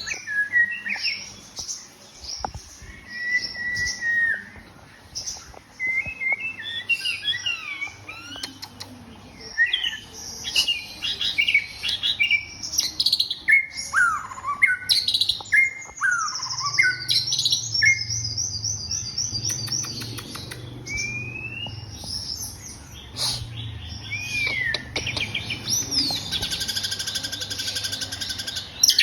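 White-rumped shama (murai batu) singing a long, varied song of clear whistles, rising and falling slides and fast trills. A faint low hum comes in about halfway through.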